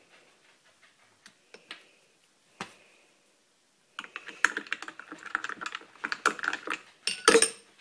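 A few scattered clicks, then from about halfway a dense run of rapid clicking and clattering like fast typing, with a louder clatter near the end.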